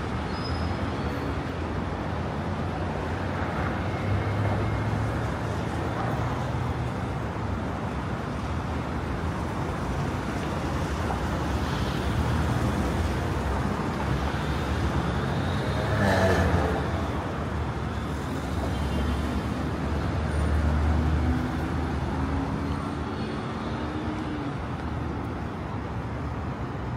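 Steady street traffic: cars driving past, with one vehicle passing louder about sixteen seconds in.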